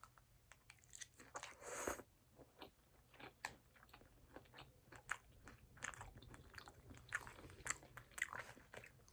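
Faint close-up sounds of a person eating: chewing and crunching with many small mouth clicks, and one longer, louder noisy stretch just before two seconds in.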